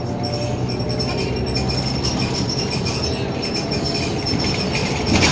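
Interior of a Scania L94UB single-deck bus on the move: steady diesel engine hum with road noise and fittings rattling. A louder knock comes near the end.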